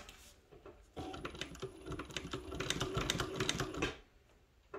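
Mauzer International chainstitch embroidery machine stitching: a rapid clatter of needle strokes over a steady motor hum. It starts about a second in and stops shortly before the end.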